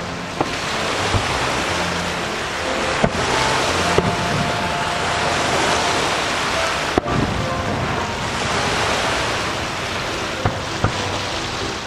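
Fireworks display: a continuous rumble and crackle of bursting shells, broken by sharp bangs at irregular intervals, the loudest about seven seconds in.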